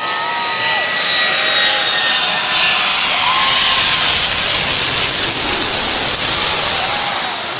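Four-engine jet airliner on landing approach passing low overhead with its gear down. The engine roar builds to a peak over several seconds, carrying a high whine that slowly falls in pitch, then eases slightly near the end.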